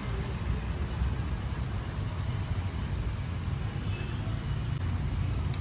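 Steady low background rumble of outdoor noise, with no distinct events.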